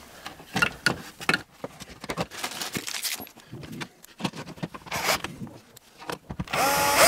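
Clicks, rustles and scrapes of cables and a plastic socket faceplate being handled and pushed onto a wall back box. Near the end a cordless drill-driver whirs briefly, rising slightly in pitch, running in a faceplate screw without fully tightening it.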